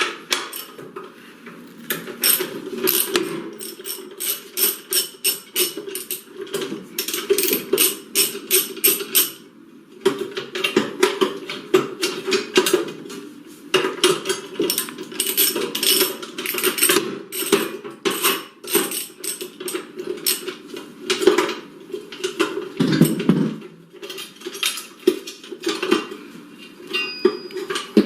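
Hand tools unbolting a metal battery hold-down bracket: runs of rapid clicking like a ratchet wrench, broken by short pauses and scattered metallic knocks and clanks.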